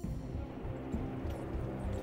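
Low ambient background music with soft, irregular thumps underneath.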